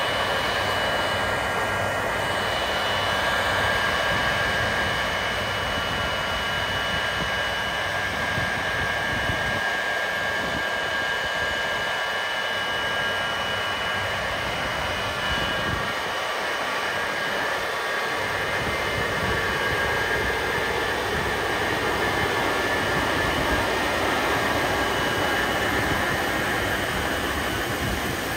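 Airliner turbofan engine running steadily: a constant rushing noise with a high, even whine over it.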